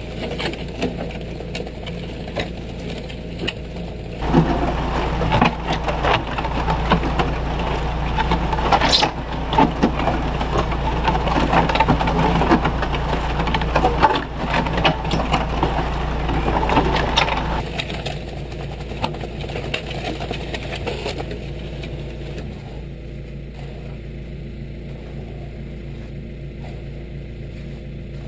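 Tractor engine running steadily while its mixer bucket discharges wet concrete down a chute, a gritty crackling pour. The pour is louder and denser from about four seconds in until about eighteen seconds.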